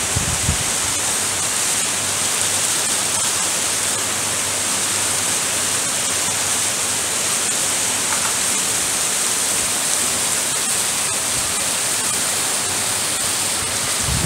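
Torrential tropical-storm rain pouring steadily on pavement and parked cars, a dense even hiss, with a couple of brief low rumbles near the start.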